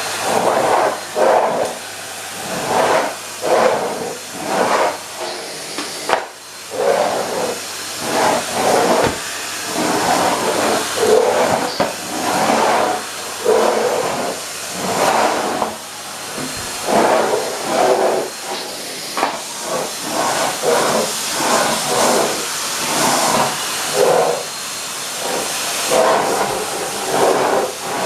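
Henry HVR 160-11 bagged cylinder vacuum cleaner running, a steady rush of air that rises and falls irregularly about once a second as the nozzle is worked.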